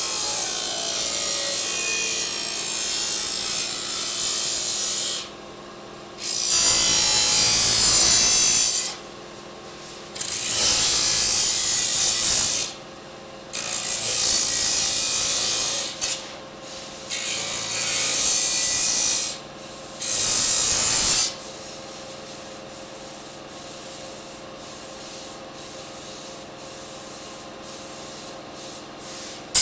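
Disc saw cutting aluminium: one long continuous cut, then five separate cuts of two to three seconds each, with the blade spinning freely with a steady whine between them. After the last cut the saw runs on quietly, and a sharp click comes at the very end.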